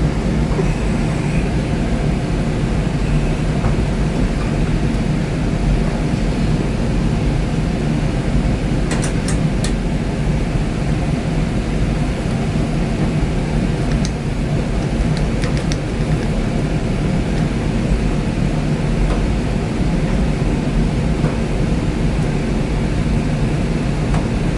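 Steady mechanical drone with a low hum, unchanging throughout, with a few light clicks around the middle.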